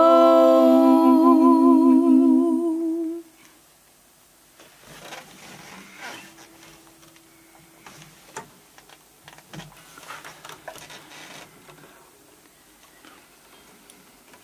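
The closing sung note of a folk song, held with vibrato for about three seconds and then cut off. After it comes a quiet room with faint small clicks and rustles.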